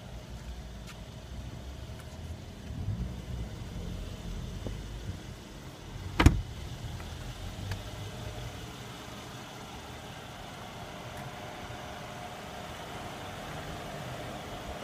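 Car idling with a low rumble, and a car door shut with a single sharp thump about six seconds in.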